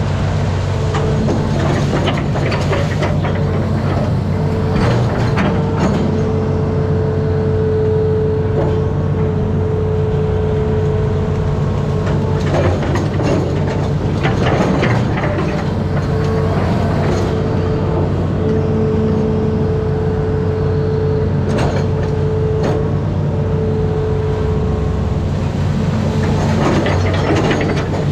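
Amphibious excavator's diesel engine running steadily under working load. A steady whine breaks off and returns several times, and there are scattered clanks and knocks from the machine.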